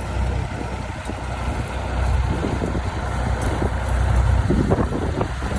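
Vintage tractor engine running steadily under load while ploughing: a continuous low rumble, with a few louder irregular knocks about four and a half seconds in.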